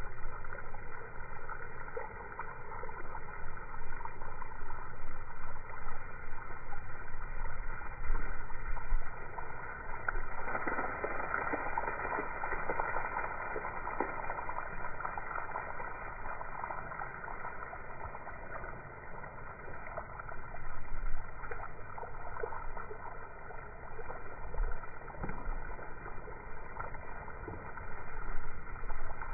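Water from a garden hose spraying and splattering onto a grass lawn, a steady rushing spatter that grows stronger about a third of the way in.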